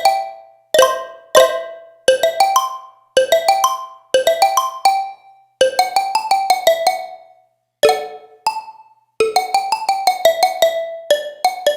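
Roland D-05 synthesizer, the Boutique version of the D-50, playing a keyboard patch. Short phrases of sharply struck notes each ring and fade, with brief pauses between the phrases.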